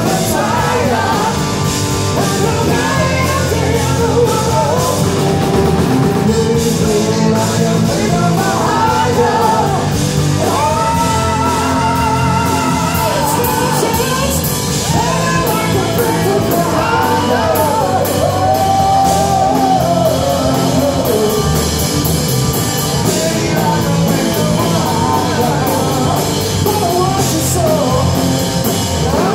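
Rock trio playing live: electric guitar, electric bass and drum kit, with singing over the top.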